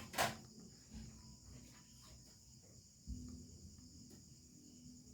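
Faint steady high-pitched insect trill, typical of crickets, with a sharp click just after the start and a few soft taps of handling.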